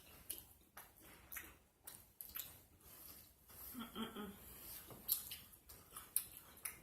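Close-miked chewing of a burger with open-mouth smacking: irregular wet clicks and squishes. A brief low hum of a voice comes about four seconds in.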